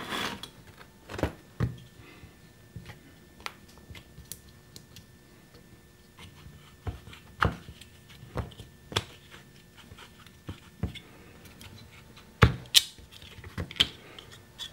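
Irregular clicks and knocks of orange 3D-printed PLA plastic handle forms and plaster mold blocks being handled, pressed together and set down on a hard worktable, with a cluster of louder knocks near the end.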